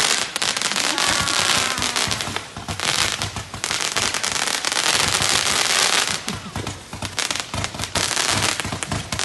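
Fireworks going off in a dense, continuous crackle of many rapid pops, dipping briefly a couple of times before building again.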